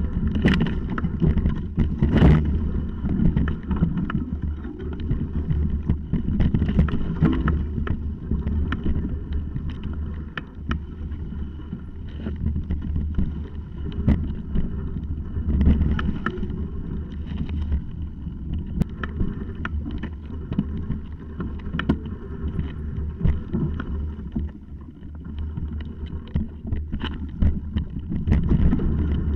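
Mountain bike riding fast over rough, stony singletrack, heard through a camera mounted on the bike: a steady low rumble of tyres and frame vibration with frequent knocks and clicks as the bike jolts over stones.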